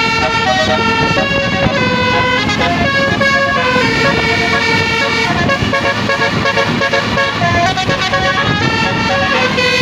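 A bus's basuri horn, a multi-trumpet melodic air horn, playing a tune in a run of changing notes. A low engine rumble sits underneath.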